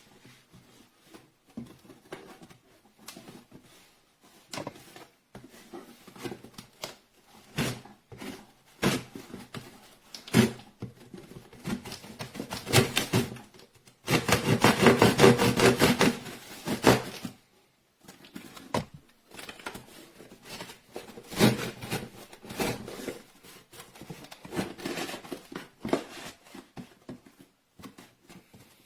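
A multi-tool pocket knife being handled, with scattered clicks and knocks as its tools are worked. A louder, dense rasping run of rapid strokes comes about halfway through.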